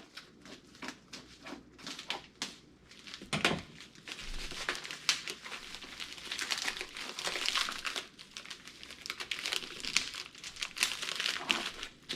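Packing material of a mail-order shipping box crinkling and tearing as it is pulled open by hand, a dense run of crackles and rips.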